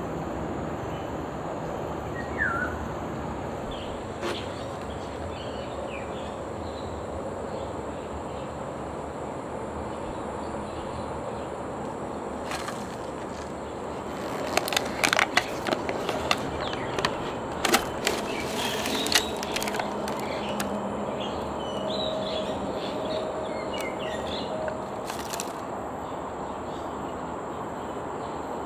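Steady outdoor background noise with a few short bird chirps. There is a run of sharp crackles and clicks near the middle.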